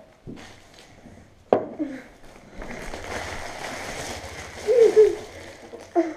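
Boys laughing: a stretch of breathy laughter that ends in two loud, high laughs near the end, with a sharp knock about a second and a half in.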